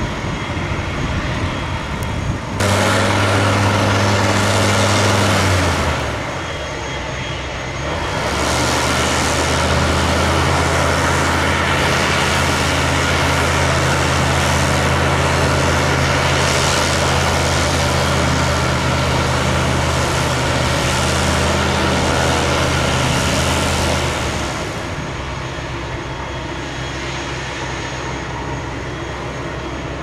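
Rotax 912 engine of a Czech Sport PS-28 Cruiser light aircraft running on the ground with its propeller turning. It makes a steady low drone that gets louder twice: briefly about three seconds in, then from about eight seconds to about twenty-four seconds.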